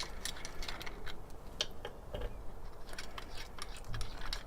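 Irregular light clicks and scrapes from the 3D-printed plastic case-feeder parts on a Hornady Lock-N-Load reloading press as it is worked by hand. The owner blames the rough printing grooves, which keep the wedge and case holder from sliding smoothly.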